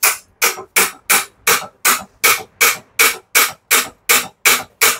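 Light, evenly spaced taps of a metal tool on a pedestal fan's motor housing, about three a second, knocking the housing loose to free the stator.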